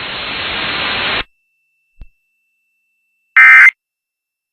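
Radio static hiss that cuts off abruptly about a second in. After a pause, near the end, comes a short, very loud burst of warbling Emergency Alert System data tones: the first of the three end-of-message bursts that close an EAS test.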